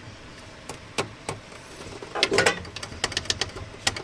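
Light clicks and taps of fuel pump assembly parts and hose fittings being handled, with a louder brief rattle a little past the middle.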